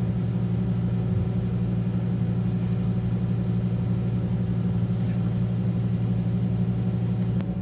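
City transit bus under way, its engine and road noise making a steady low drone with a constant hum.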